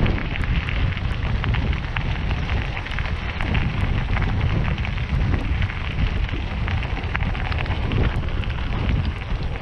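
Bicycle tyres crunching steadily over a gravel trail, a continuous crackle of small stones, under a low rumble of wind buffeting the moving camera's microphone.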